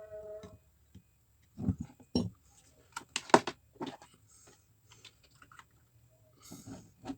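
A series of irregular sharp clicks and knocks, as of hard objects being handled or set down, the loudest about three and a half seconds in; music fades out at the very start.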